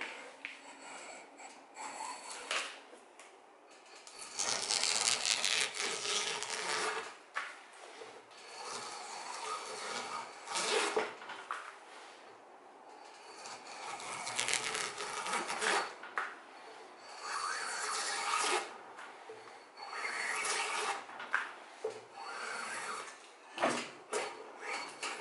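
Homemade drawknife, its blade made from old planer blades, shaving a fresh wooden pole in a series of pulling strokes: each stroke is a scraping rasp lasting a second or two as a curled shaving peels off.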